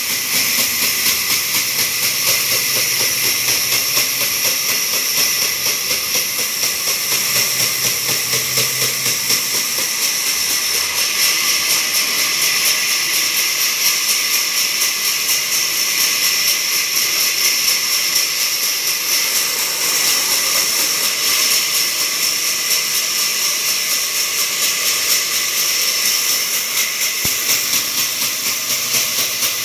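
Sawmill band saw cutting lengthwise through a thick timber plank: a loud, steady, high-pitched hiss and whine of the blade running through the wood, with a low hum under it for the first nine seconds or so.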